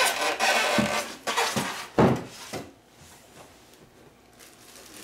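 Plastic packing bag rustling and crinkling as it is pulled off an elliptical trainer's frame and styrofoam end block, with a sharp knock about two seconds in. The handling is much quieter in the second half.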